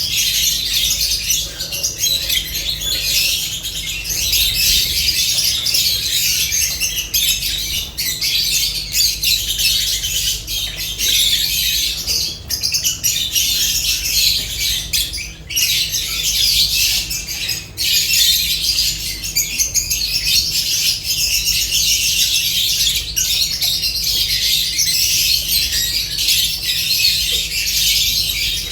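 A flock of lovebirds chattering and squawking without a break, many shrill calls overlapping.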